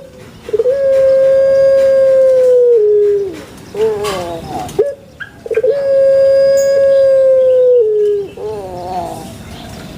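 Puter pelung dove (Streptopelia risoria) giving its long call twice. Each call is a held note of about two seconds that steps down in pitch at the end, followed by a few short wavering notes.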